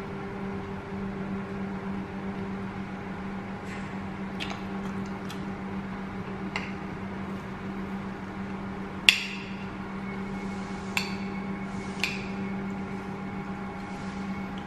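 Metal spoon clinking and scraping against a ceramic plate of fried rice, a handful of separate clinks with the sharpest about nine seconds in. A steady low electrical hum runs underneath.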